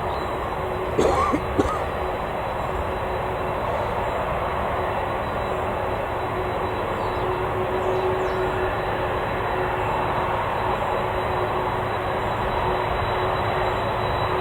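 Jet airliner engines running with a steady rumble and a held whine, slowly growing louder. A couple of brief clicks sound about a second in.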